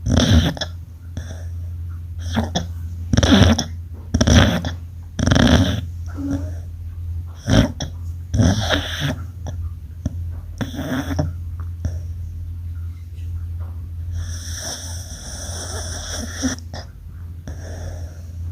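Sleeping dog snoring: a run of short, loud snores roughly once a second, then softer breaths and a longer hissing snore a little past the middle, over a steady low hum.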